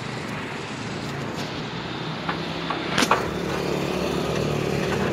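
A running engine's steady hum, with a few sharp knocks; the loudest knock comes about three seconds in.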